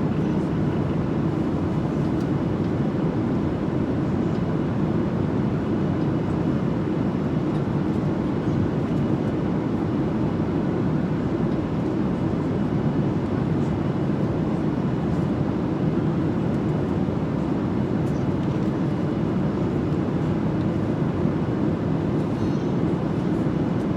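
Airliner cabin noise in flight: a steady, even rumble of engine and air noise that does not change.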